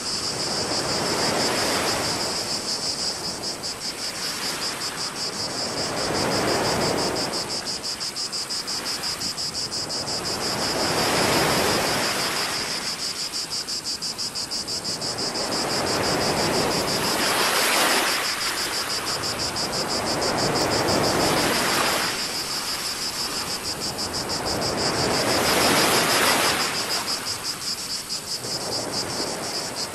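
Small sea waves washing onto the shore in slow swells about every five seconds, over a steady, high-pitched insect buzz.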